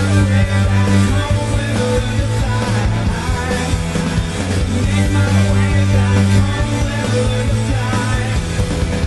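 Loud rock music playing as an NHL team's goal song, over a heavy, steady bass line.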